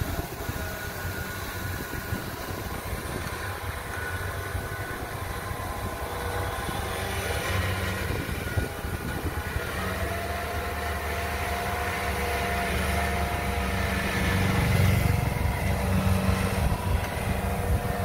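Kubota DC-70 combine harvester's diesel engine running steadily as the machine harvests rice, with the whirr of its cutting and threshing gear. It gets louder over the last few seconds as the harvester comes close.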